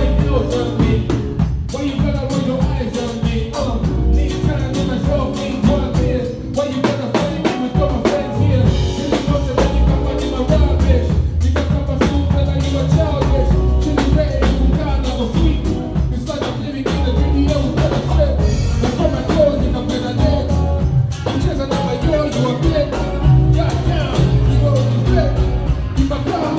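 A song with singing over drums and a heavy bass line, played loud and continuous.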